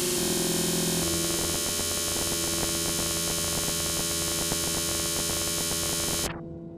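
Techno breakdown: a loud, buzzing, noisy synth drone with steady held notes, which shifts about a second in and cuts off abruptly about six seconds in, leaving a few lower tones ringing and fading.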